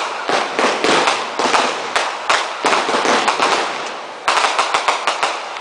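Class 2 consumer fireworks going off in rapid succession: a string of sharp bangs, several a second, each ringing out briefly, with a quick cluster of cracks a little over four seconds in.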